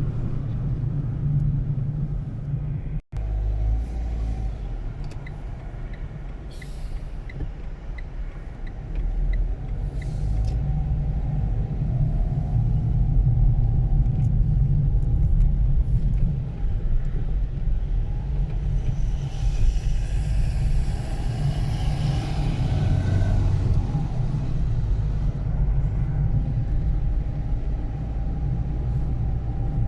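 Steady low rumble of a moving road vehicle, with a brief dropout about three seconds in and a louder, hissier stretch around twenty seconds in.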